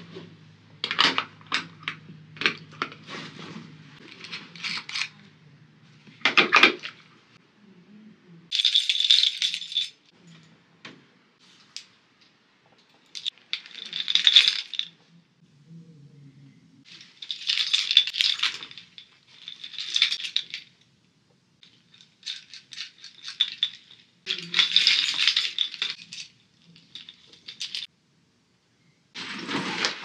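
A metal carabiner clicking as it is clipped and handled, then keys hanging from it jingling in about half a dozen short bursts.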